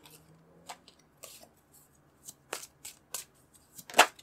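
A deck of tarot cards shuffled by hand: a string of short, sharp card snaps and flicks at uneven intervals, the loudest about four seconds in.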